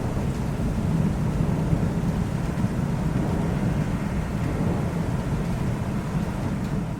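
Thunderstorm: a steady low rumble of rolling thunder under continuous rain, with no sharp cracks.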